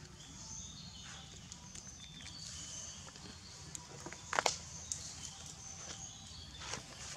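Outdoor ambience: short high chirps scattered throughout over a low rumble, with a few light clicks and a brief cluster of sharp knocks or rustles about four and a half seconds in.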